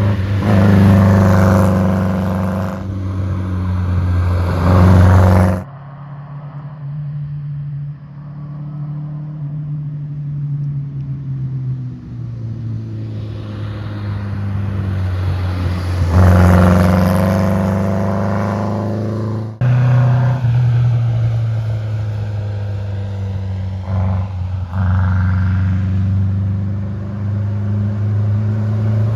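Car engine running under way, revving up and falling back in pitch, with the sound cutting abruptly to a different engine note about five and a half seconds in and again near twenty seconds.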